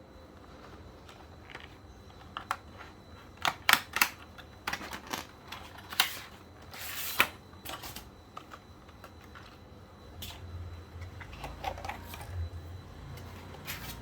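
Scattered, irregular clacks and knocks from a low-profile mechanical keyboard and its wrist rest being tapped and handled. Near the end there is a low rumble.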